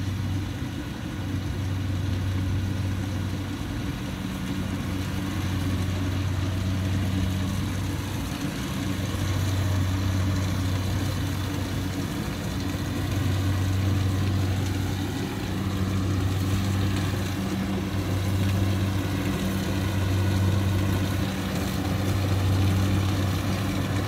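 Kubota DC70 Plus combine harvester's diesel engine running steadily while it harvests rice. Its low hum swells and fades every few seconds.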